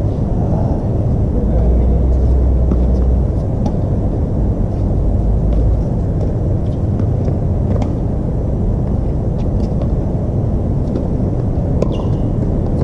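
Tennis rally on a hard court: faint sharp ticks of the ball being struck every second or two, over a steady low rumble that swells twice in the first half.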